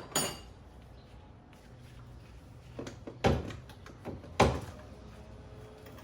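Hand tools and metal engine parts being handled: a clink with a short metallic ring at the start, then a few knocks and two loud clunks around three and four and a half seconds in.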